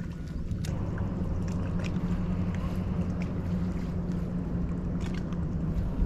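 Bass boat's bow-mounted electric trolling motor running with a steady low hum. A rushing wash of water joins in under a second in.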